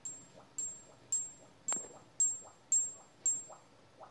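Titanium 64 alloy test bar, resting on support wires, tapped seven times about every half second with a small rod; each tap gives a sharp click and a high, clear ping that dies away within about half a second. The ping is the bar's flexural resonance, which the software measures at about 7,495 Hz to compute the dynamic Young's modulus.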